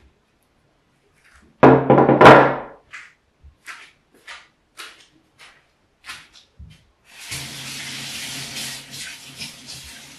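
A loud thunk and clatter about two seconds in, then a few light knocks. From about seven seconds in, a tap runs water steadily.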